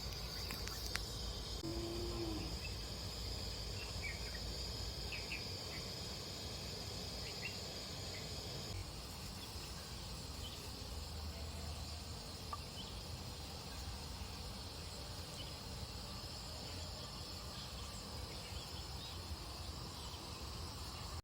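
Forest insects trilling steadily at a high pitch, with a few short high chirps in the first few seconds.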